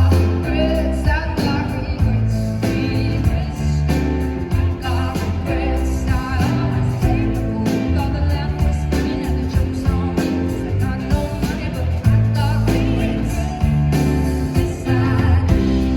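Live band music with a woman singing.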